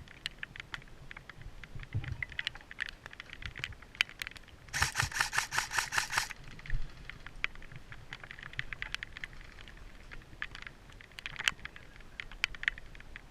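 Airsoft electric gun firing one full-auto burst of rapid, evenly spaced shots for about a second and a half, about five seconds in, amid scattered light clicks and rustles of movement.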